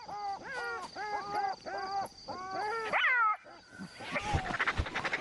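Black-backed jackal yelping: a quick run of about a dozen short yips that fall in pitch, ending in one higher, louder yelp about three seconds in. A rustling hiss follows near the end.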